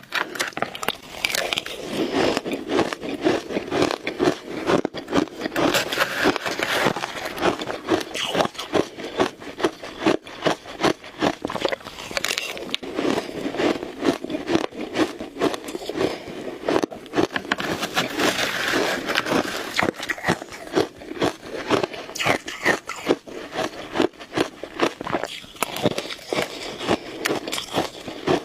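Shaved ice being bitten and chewed close to the microphone: a steady run of quick, crackly crunches.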